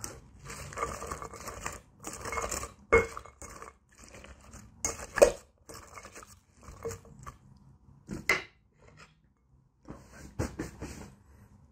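Fruit salad being mixed in a glass bowl: wet rustling and scraping, broken by several sharp clinks against the glass.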